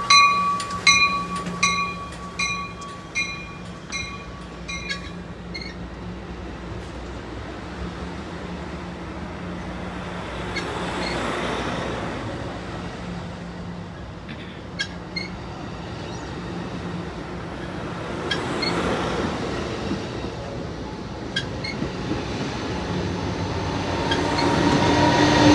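Amtrak Pacific Surfiner passenger train: a railway warning bell dings about one and a half times a second and fades out about five seconds in. The train then rumbles past over the rails with scattered wheel clicks, swelling loudest near the end.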